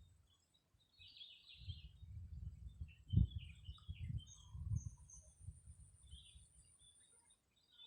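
Small birds chirping in short high bursts over gusty low rumbling on the microphone, with a single dull thump about three seconds in.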